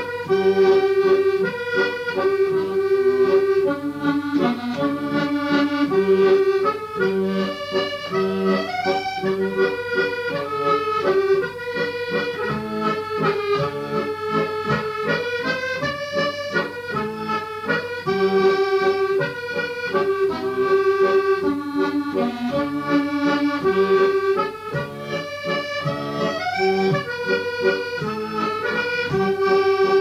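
Accordion music: a melody of held notes over a steady pulse of bass notes and chords.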